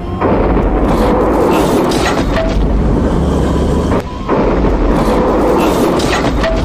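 Loud, continuous low rumbling, like a heavy boom or quake sound effect. It drops out for a moment about four seconds in, then resumes.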